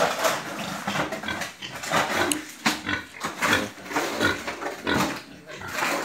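Pigs in a pen grunting over and over in short bursts, about two a second.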